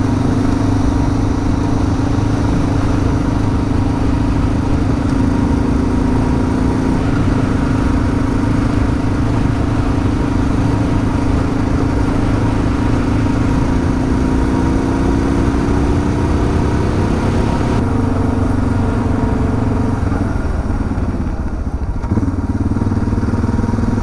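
Suzuki DR650's single-cylinder four-stroke engine running steadily at cruising speed under the rider. The engine note wavers in the last few seconds and dips briefly about 21 seconds in.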